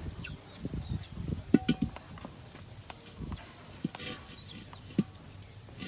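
Knocks and clinks of cooking gear at a clay charcoal stove as charcoal, metal tongs and a large steel wok are handled. The sharpest knock, about a second and a half in, leaves a brief metallic ring. Chickens and small birds call in the background.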